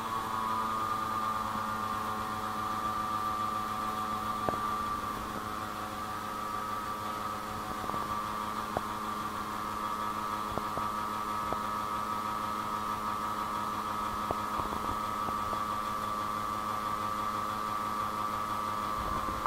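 Automatic transmission fluid flushing machine running with a steady hum, several tones held level, and a few faint clicks, as it circulates fresh fluid through the car's automatic transmission in the middle of a flush.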